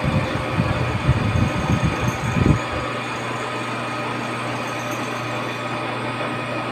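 Milling machine running with a steady mechanical hum. Irregular low rumbling for the first couple of seconds stops abruptly, leaving the even hum.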